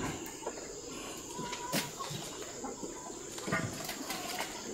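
Quiet chicken-run ambience: a few faint, short clucks and calls from chickens over a steady high insect hum.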